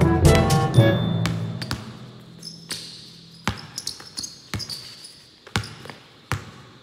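A basketball dribbled hard on a gym floor: sharp single bounces at an uneven pace, some in quick pairs. Music fades out over the first couple of seconds.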